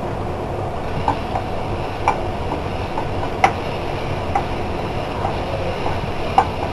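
Garlic paste sizzling in hot oil with cumin seeds, the tempering (chhaunk) for a mango pickle, as a spatula stirs it round a nonstick kadhai with a few sharp taps against the pan.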